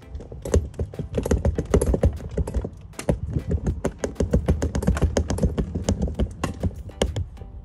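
Dense, irregular crackling and clicking as a windshield cutting wire is wound and dragged through the urethane bead holding the glass.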